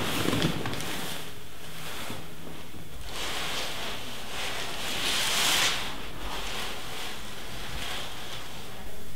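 Soft rustling over a steady background hiss: a brief rustle right at the start, and a longer, louder one that swells and fades about five seconds in.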